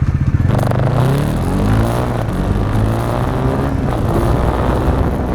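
Bajaj Pulsar NS400's single-cylinder engine revving, its pitch rising and falling several times.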